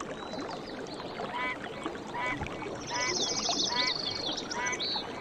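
Running water with an animal calling over it again and again, a short call a little more often than once a second, and a fast high-pitched trill joining in about the middle.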